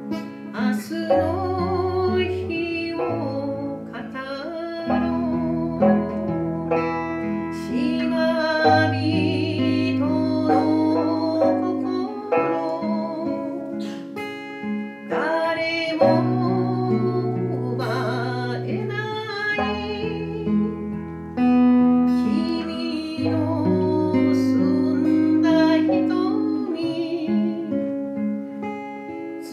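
A live song: an acoustic guitar strummed together with an Okinawan sanshin, with a voice singing over them.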